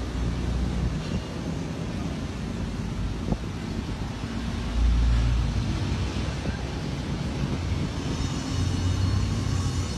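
Vintage cars' engines running with a low rumble as the cars roll slowly past one after another. The rumble swells loudest about five seconds in and again near the end.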